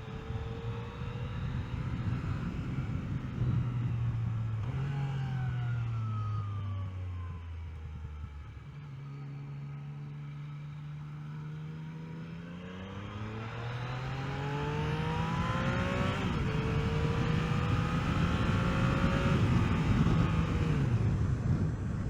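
Yamaha XSR900's inline three-cylinder engine heard from the bike while riding, with wind rush. Its pitch falls as the bike slows in the first half, stays low and steady for a few seconds, then rises as it accelerates again, with a gear change about two-thirds of the way in.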